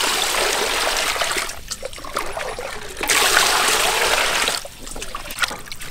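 Water poured in a stream into a metal basin of plucked whole chickens, splashing over them as hands rinse them. It comes in two pours, the second starting about three seconds in and louder, with lighter sloshing between and after.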